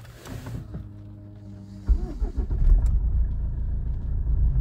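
Renault Laguna III 2.0 dCi diesel engine started from completely cold: it catches about two seconds in and runs on at a steady low idle.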